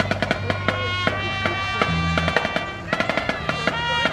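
School band playing live: trumpets and other brass holding notes over a low brass bass line, with a steady drum beat.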